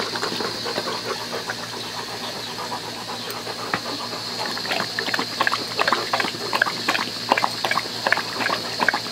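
A Rottweiler lapping water from a shallow foldable plastic dog pool, a quick run of wet, splashy laps that grows louder about halfway through, over the steady hiss of a garden hose filling the pool.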